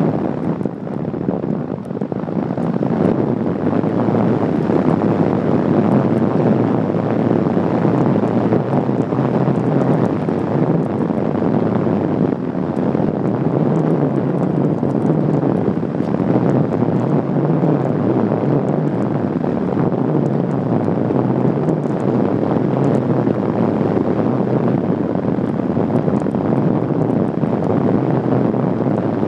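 Steady, loud rush of airflow over the microphone of an iPhone 4 strapped to a Radian Pro RC glider in flight.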